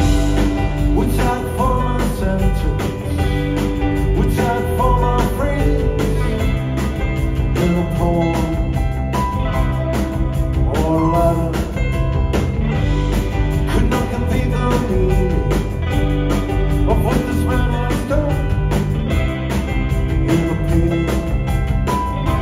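Live indie rock band playing a song: electric guitar, electric bass, drums and keyboard, with a sung lead vocal over them.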